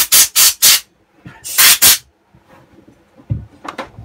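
Short blasts of compressed air blowing drilling swarf off a freshly drilled part: a quick run of hissing bursts in the first second, then two more just before the two-second mark. A light knock and a couple of clicks follow near the end.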